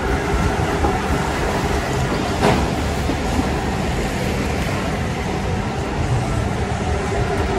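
Steady mechanical rumble with a faint, constant hum, and a single knock about two and a half seconds in.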